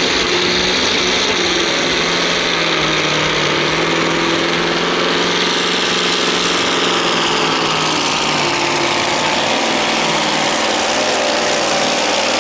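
Scania V8 diesel truck engine running loud and steady at high revs, under full load as the truck drags a truck-pulling sled.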